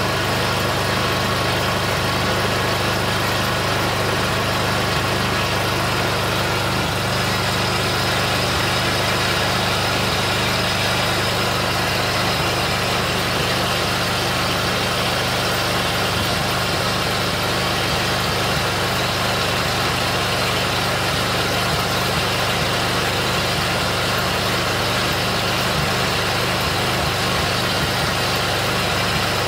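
Kohler Command 16.5 OHV lawn-tractor engine running at a steady idle, with no throttle linkage hooked up, so it runs at whatever speed it settles to.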